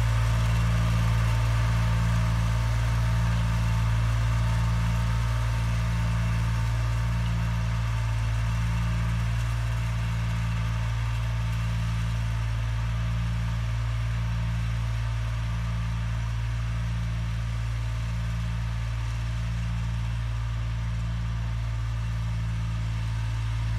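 John Deere 1020 tractor's three-cylinder engine running steadily under load while pulling a plow, a low drone with a slow pulsing beat a little under once a second. It grows slightly fainter as the tractor moves away.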